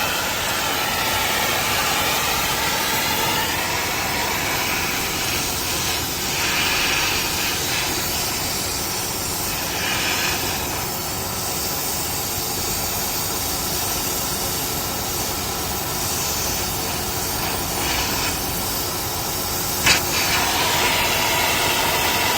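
Gas torch flame hissing steadily while heating the pipework and filter drier of a refrigeration system to unsweat the soldered joints. A single sharp knock near the end.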